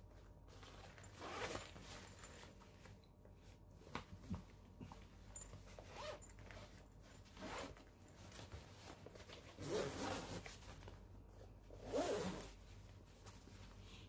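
Zippers on a Victorinox Altmont Active Compact backpack being pulled along in about six short zips, the last two the loudest, with a few light clicks in between.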